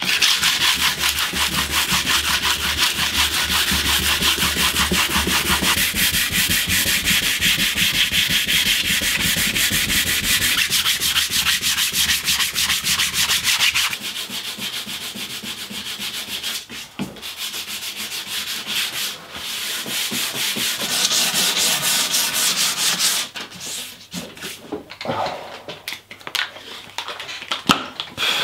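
Sandpaper rubbed by hand over the epoxy and fibreglass coated blade of a wooden canoe paddle, in quick, steady strokes: the cured epoxy is being sanded back. About halfway through the sound changes, and the strokes come in shorter runs with pauses between them.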